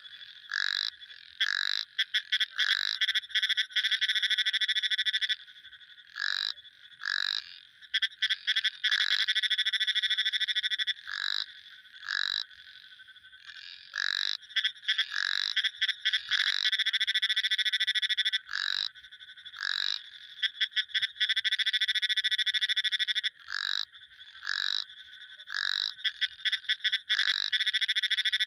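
Frogs calling in chorus: short high-pitched calls about a third of a second long, repeated every second or so, alternating with long rapid rattling trills that run for two to three seconds at a time.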